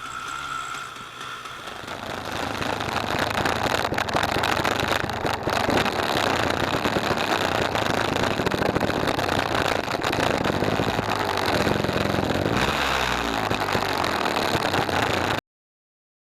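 2013 KTM 250 EXC single-cylinder two-stroke engine running. It grows louder over the first two seconds and shifts in pitch near the end, then cuts off abruptly.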